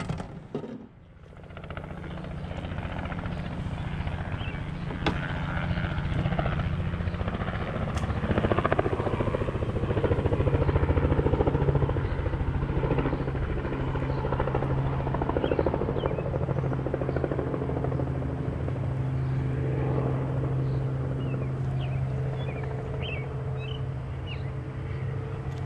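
A steady, low engine drone that sets in about a second and a half in and keeps an even pitch.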